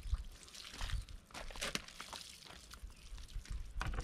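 Water splashing and pouring over a dog being bathed, with irregular crackles of wet fur being rubbed and a few low knocks.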